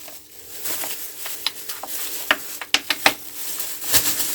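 Irregular light clicks and taps of hands and tools working the engine oil drain plug loose under the car.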